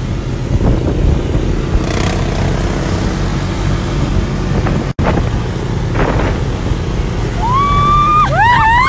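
Quad bike (ATV) engine running steadily as the quads ride along the sand, with a brief cut about halfway. Near the end a woman lets out a long high whoop that slides up and down.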